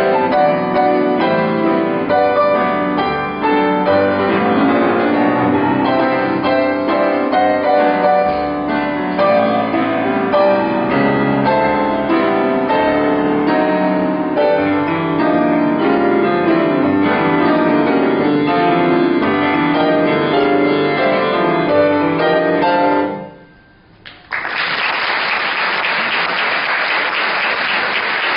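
Solo grand piano playing a set of variations, which ends about 23 seconds in; after a short pause the audience breaks into applause.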